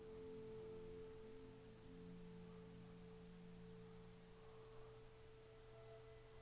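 Near silence with faint background music of a few long held notes, one note fading and another coming in near the end.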